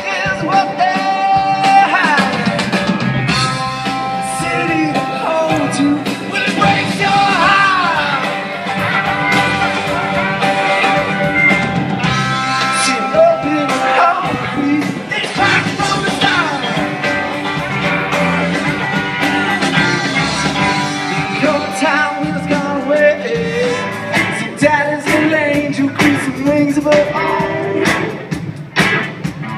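Live band playing a song with a lead vocalist singing, heard through the outdoor stage's speakers from the crowd.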